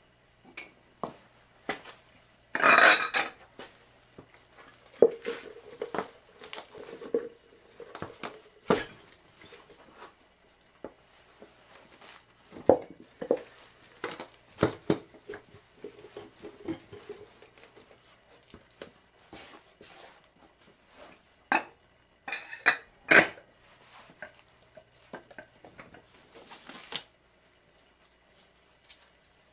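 Irregular metal clinks, clanks and knocks as a small mower wheel is lifted off and set back onto the steel spindle of a mini tire changer, with a brief louder scraping rub about three seconds in.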